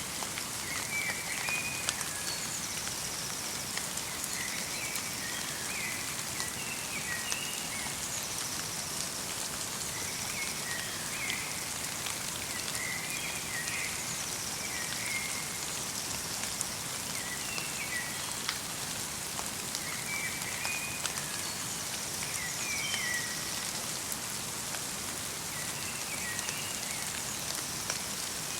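Light rain falling steadily in a forest, with fine scattered drop ticks, while a small songbird repeats a short chirping phrase every two to three seconds, with thin higher notes in between.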